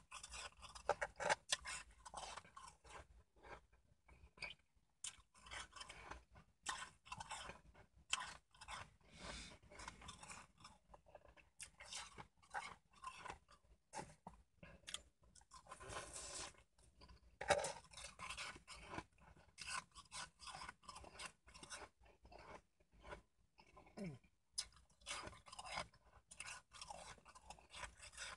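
Ice being bitten and chewed: close, irregular crunching in quick runs of short crunches with brief pauses between mouthfuls.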